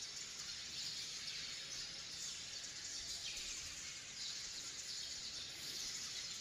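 Steady outdoor ambience: a faint, even high-pitched hiss.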